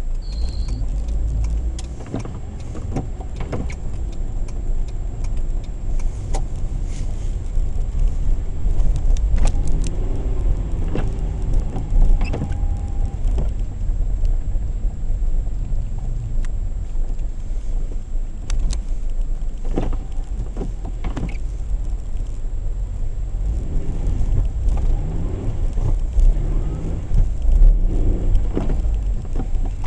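Opel Kadett E Caravan driving slowly on snow and ice, heard from inside the cabin: a steady low engine and road rumble whose pitch rises and falls several times, with scattered knocks and jangling rattles from the car's interior.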